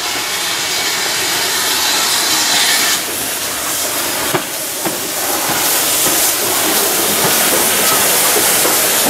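Steam tank locomotive passing at low speed with its train, giving off a loud, steady hiss of steam, with a few sharp clanks from the running gear about three to five seconds in.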